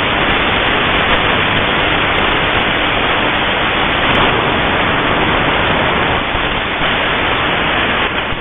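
Shortwave radio receiver putting out loud, steady static hiss, with no station audible through the noise.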